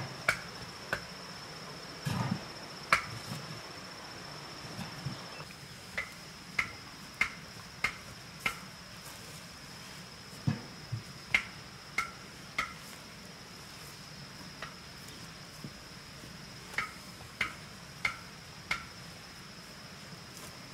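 Forest ambience: a steady high-pitched insect drone with runs of four or five sharp chirps, a little under two a second, repeating several times. A few dull thuds as rocks are set down on the dirt beside a cooking pot, about two seconds in and again around ten seconds.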